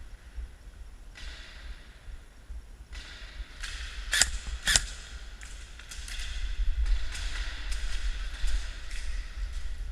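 Two sharp cracks about half a second apart, a little after the middle: airsoft gun shots. Fainter scattered clicks follow, over a low wind rumble on the microphone.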